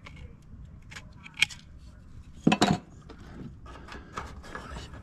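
Hand tin snips cutting a small piece of zinc sheet, with sharp metallic clicks and clinks of the sheet metal. The loudest is a short clatter about two and a half seconds in.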